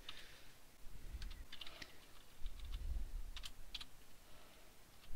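Computer keyboard being typed on: a few scattered keystrokes with short pauses between them.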